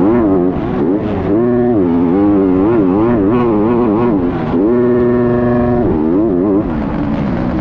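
250cc four-stroke motocross bike engine heard from on board at full throttle, its revs rising and falling quickly as the rider works the throttle and gears through deep sand. The revs hold level for about a second just past the middle, then drop with a short dip in loudness near the end.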